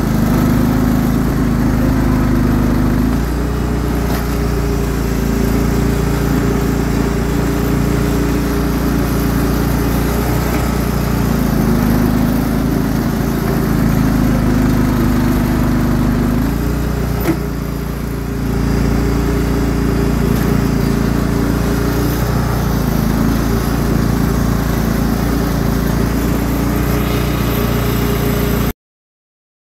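Cub Cadet riding lawn tractor's engine running steadily under way while it pushes with a front plow blade, its pitch shifting a little now and then. A single sharp click about seventeen seconds in, and the sound cuts off abruptly near the end.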